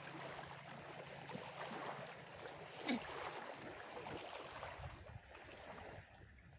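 Small waves washing on the river, a steady watery rush, with one brief sharp sound about three seconds in.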